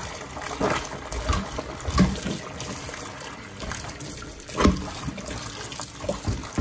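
Sink plunger being pumped by hand over a kitchen sink drain under standing water: water sloshing and gurgling with a few sharp surges as the cup is pushed down and pulled up, a tap running into the sink. Near the end the plunger is lifted out and the water drains.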